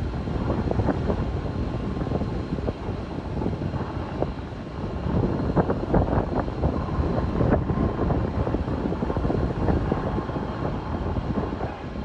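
Engine drone of a firefighting aircraft flying over, a steady rumble that flutters unevenly.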